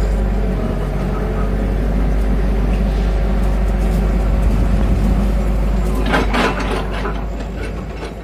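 JCB tracked excavator's diesel engine running steadily, with a short cluster of sharp knocks about six seconds in from its hydraulic breaker against the concrete rubble. The sound fades away near the end.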